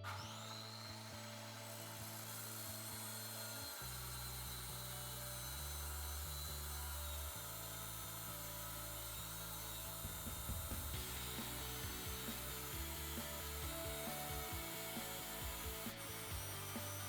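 Quiet background music with a stepped bass line, over a faint steady rasp of steel tubing being cut.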